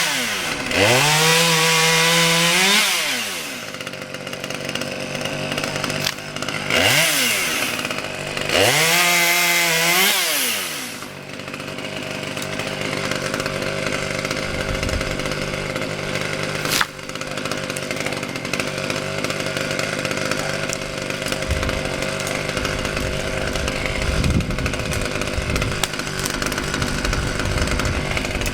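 Husqvarna T540 XP two-stroke top-handle chainsaw revved hard three times, its pitch climbing and falling back each time, then settling into a steady idle for the rest of the time, with a single sharp click partway through the idle.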